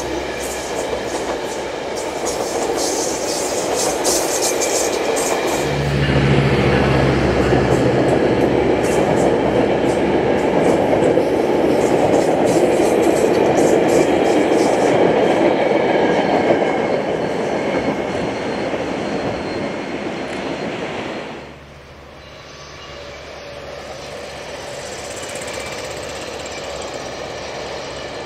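Metrolink commuter train with an EMD F125 diesel-electric locomotive passing, with a run of sharp wheel clicks from the rails. About six seconds in, the locomotive's 20-cylinder Caterpillar diesel engine drone rises with the loudest wheel-and-rail noise. The noise drops off sharply about three-quarters of the way through, leaving a quieter steady rumble.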